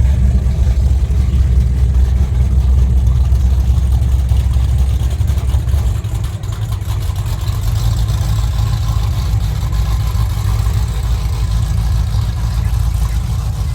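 Big powerboat engines idling with a deep, steady rumble; the lowest part of the rumble falls away about six seconds in while a lighter engine rumble runs on.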